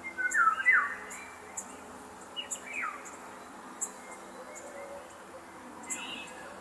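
A bird giving short calls that slide down in pitch, loudest in the first second and again about two and a half seconds in, over faint, high insect chirps.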